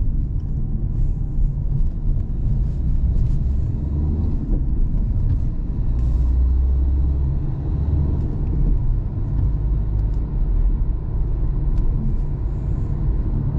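Steady low rumble of a car being driven, heard from inside the cabin: engine and tyre noise, swelling slightly about halfway through.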